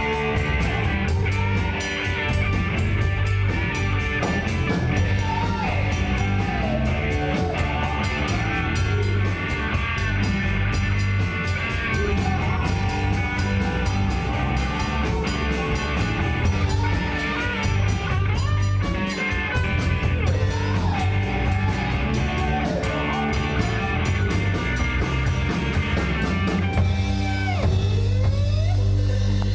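Live rock band playing: electric guitars, bass guitar and drum kit, with a lead line wavering in pitch and a note sliding down near the end.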